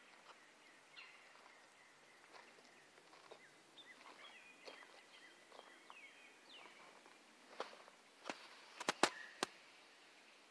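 Faint birds chirping in short, falling calls, with a handful of sharp clicks near the end that are the loudest sounds.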